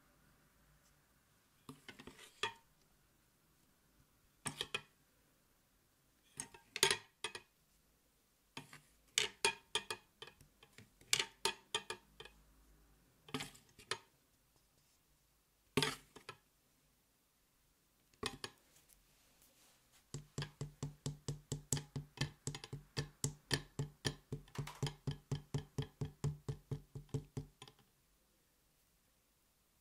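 A wooden skewer and a spoon clinking and tapping against a stainless steel bowl of melted white chocolate, in scattered single knocks at first. Later comes a fast, even run of ringing taps, about five a second, that stops suddenly near the end.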